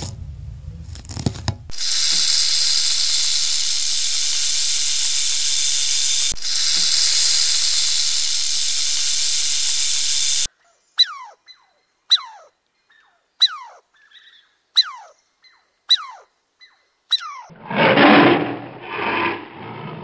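A snake hissing: a loud, steady hiss lasting about nine seconds, with a brief dip partway through. It is followed by six short, high calls, each sweeping downward, a little over a second apart, and near the end by a rough, lower animal call in two bursts.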